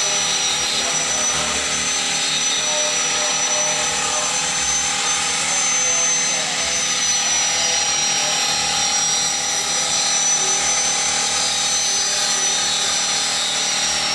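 Gravity-feed compressed-air paint spray gun hissing steadily as it sprays, with a thin high whistle over the hiss.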